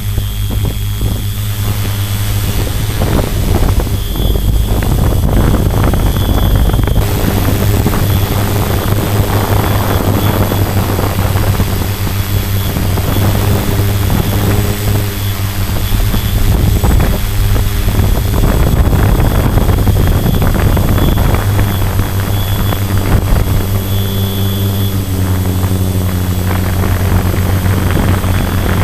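Tarot 650 quadcopter's electric motors and propellers whining steadily, as picked up by the GoPro mounted on the airframe. The motor tones shift in pitch now and then over a rushing noise.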